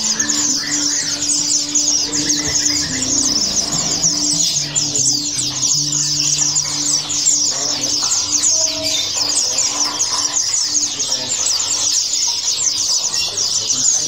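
Many small caged songbirds, sunbirds among them, chirping rapidly and without a break in high-pitched, overlapping calls. A faint low melody plays underneath in the first half.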